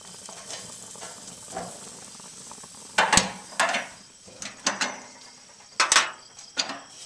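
Beets and carrots sizzling in a pan on high heat, with a utensil knocking and scraping against the pan several times from about three seconds in.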